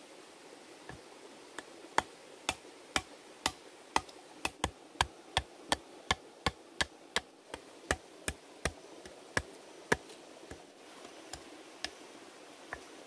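Repeated sharp knocks of a tool striking wood, about two to three a second, growing sparser in the last few seconds.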